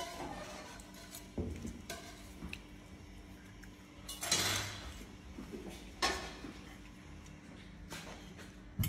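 Metal forks clinking and scraping on ceramic plates as pancakes are cut and eaten: a handful of scattered clinks and short scrapes, the longest scrape about halfway through.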